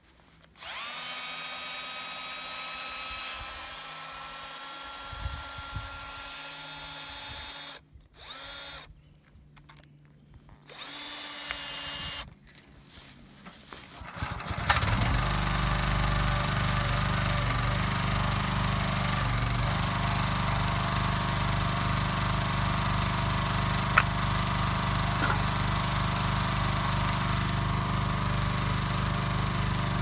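A handheld power drill runs at the backhoe bucket's mounting bolts in three runs, a long steady whine and then two short ones. About fifteen seconds in, the Kellfri ATV backhoe's engine starts and runs steadily.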